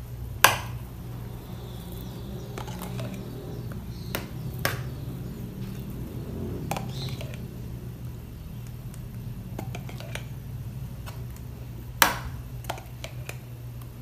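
A metal spoon clinking sharply a few times while scooping mayonnaise from a glass jar and spreading it over bread slices in a baking pan, the loudest clinks about half a second in and near the end. A steady low hum runs underneath.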